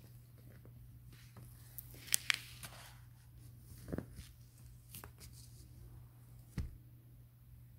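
A hardcover picture book being handled: crisp rustling and two sharp clicks from its cover and pages about two seconds in, then a few soft knocks, the last near the end.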